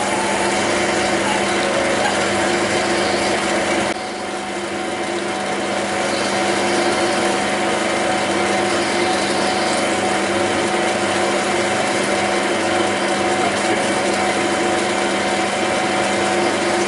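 Small metal lathe running steadily while a 9.5 mm twist drill feeds into white acetal plastic: an even motor and spindle whine with a few steady tones. There is a brief dip in level about four seconds in.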